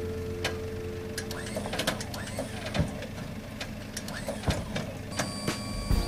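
The motor of a small truck-mounted beehive crane whines and stops about one and a half seconds in. Scattered knocks and clatter follow as beehive boxes are set down on the truck bed. A whine with several steady tones starts again near the end, as the crane boom begins to rise.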